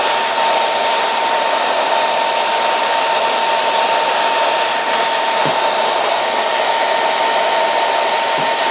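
Handheld hair dryer running steadily, an even rush of blown air with a constant whine from its motor over it. It shuts off suddenly near the end.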